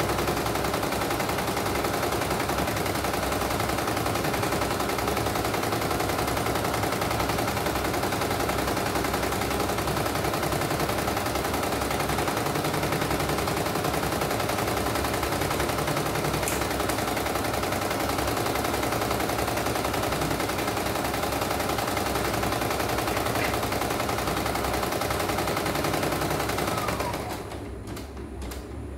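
CNY E900 computerised embroidery machine stitching, its needle bar hammering in a rapid, steady clatter while the hoop is driven about. It is test-stitching after a mainboard replacement and runs smoothly, without faults. The stitching stops near the end.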